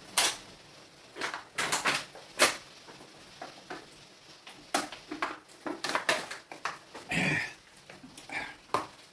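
Irregular sharp clicks and knocks, about a dozen, some in quick clusters, with a short scraping noise about seven seconds in.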